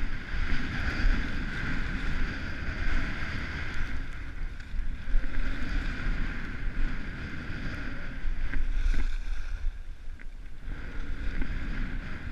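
Skis hissing and scraping over cut-up packed snow on a downhill run, with wind buffeting the action camera's microphone.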